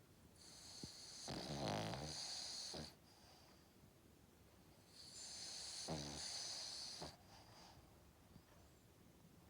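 Cavalier King Charles Spaniel snoring in its sleep: two long snores about five seconds apart. Each is an airy hiss with a rattling buzz in the middle.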